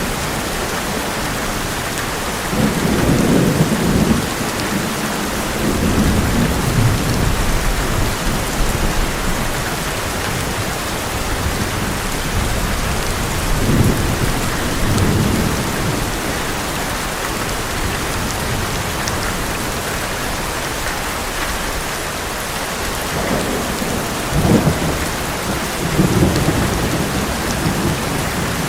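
Heavy rain falling steadily on an old metal roof, with low rolls of thunder rising and fading about four times.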